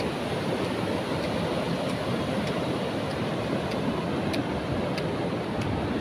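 Ocean surf breaking on a sand beach: a steady rush of waves without let-up.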